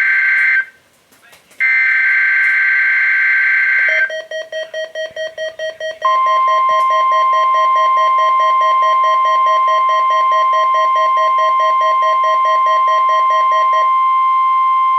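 NOAA Weather Radio SAME header data bursts, a loud two-tone warbling signal. One ends just after the start, and the last plays from about one and a half to four seconds in. A lower tone then beeps rapidly, about four or five times a second, until about a second before the end. About six seconds in, the steady 1050 Hz NWS warning alarm tone starts over the beeping and holds to the end.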